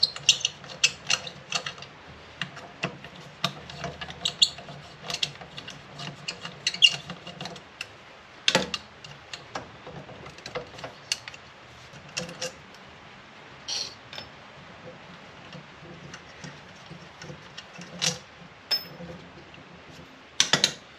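Irregular metal clicks and knocks from a GM SI-series alternator's housing being handled and turned in the hands, with sharper knocks about eight seconds in and a pair near the end.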